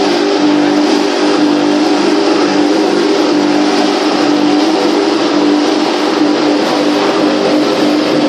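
Hammer-mill pulverizer running steadily, a constant machine hum with a dense rushing noise over it.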